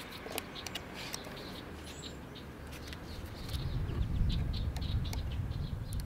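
Small crackles and ticks of thin plastic as a protective film is peeled off the smart bird feeder's camera by hand. About halfway through, a low rumble rises under them.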